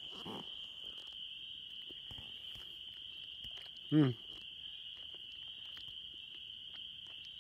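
Steady, high-pitched night chorus of calling frogs, one continuous trill with no breaks. About four seconds in there is a short hummed voice sound from a person.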